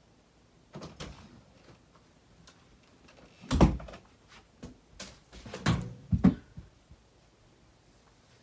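Footsteps in slide sandals and several knocks and thumps, like a door being handled, as someone walks into a small room. The loudest thump comes about three and a half seconds in, and a cluster of thumps follows around five to six seconds.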